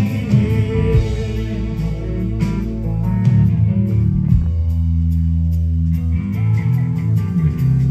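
Live progressive rock band playing an instrumental passage: electric guitar, bass and drums, with long held bass notes.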